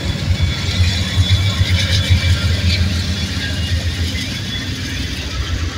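Amtrak GE P42DC Genesis diesel-electric locomotives passing with their engines running under load: a steady deep rumble. The train's wheels roll over the rails as the baggage car follows, with a hiss that is strongest in the first few seconds.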